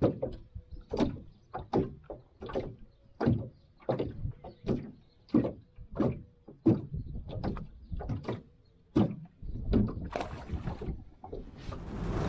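Small waves slapping against the aluminium hull of a jon boat: hollow knocks at an uneven rate of about two a second, with a faint steady hum underneath. Near the end a rising swell of music comes in.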